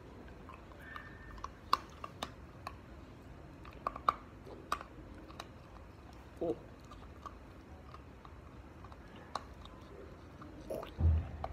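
Beagle puppy chewing a dog treat: irregular sharp crunches, thickest in the first half, then sparser. A louder low thump comes near the end.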